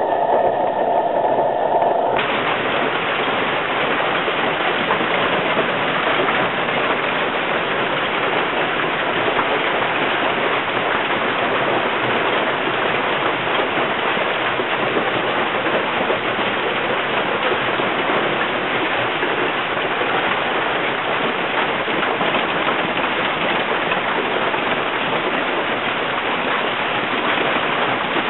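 Marble- to golf-ball-sized hailstones pelting cars and the ground in heavy hail: a dense, unbroken clatter that holds steady throughout.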